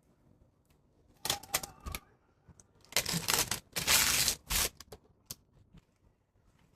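Packaging being handled and opened: two bursts of rustling and crinkling mixed with sharp clicks, the second longer and louder, then a few scattered clicks.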